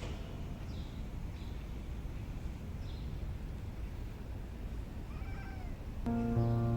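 A cat meowing: a few short calls that bend in pitch about five seconds in, over a steady low background noise. Music starts again near the end.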